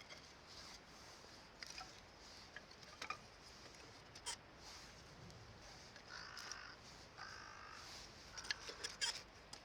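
A crow cawing faintly twice, once about six seconds in and again a second later, among scattered small clicks and taps.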